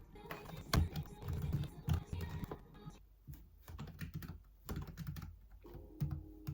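A run of irregular clicks and taps, busiest in the first half and again near the end, over soft background music.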